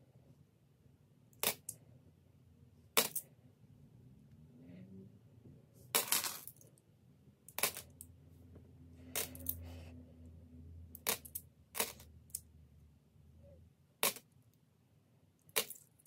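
Australian $1 coins clinking as they are handled and set down, about nine sharp clinks spread unevenly, one every second or two.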